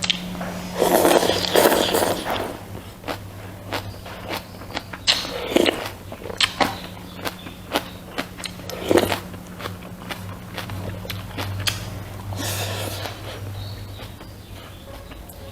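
Close-miked eating sounds: chewing and mouth noises with many small clicks, likely of a spoon against a bowl, and several louder noisy bursts, over a low steady hum.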